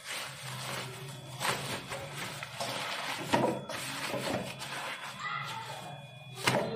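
Rustling and scraping of things being handled, with several sharp clicks or knocks, over a low steady hum. A voice murmurs briefly about five seconds in, and a sharp knock comes near the end.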